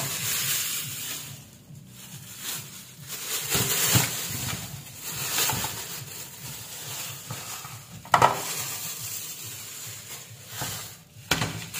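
Thin plastic bag rustling and crinkling as crabs are shaken out of it into a plastic tray, with a few sharp knocks of crab shells landing in the tray, the loudest about eight seconds in.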